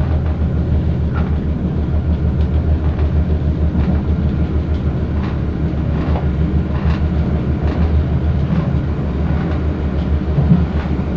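Diesel passenger train running at speed, heard from inside the carriage: a steady low drone of engine and wheels, with faint clicks of the wheels on the track about once a second.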